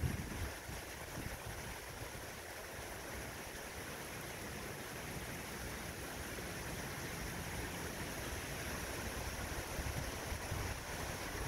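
Heavy, wind-driven rain falling in a steady hiss during a summer thunderstorm. Gusts of wind buffet the microphone with a low rumble at the start and again near the end.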